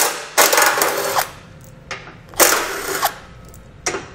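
Milwaukee M12 Fuel cordless driver with a 13 mm socket running in short bursts of about a second, with brief trigger blips, spinning out the bolts that hold the bumper beam end to the frame.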